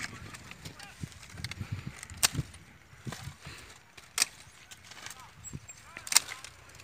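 Hand pruning shears snipping shoots on a young mango tree during formation pruning: three sharp snips about two seconds apart.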